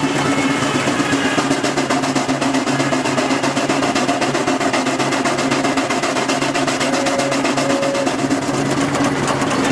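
Steam traction engine running under belt load, its exhaust beating in a rapid, even rhythm over a steady hum.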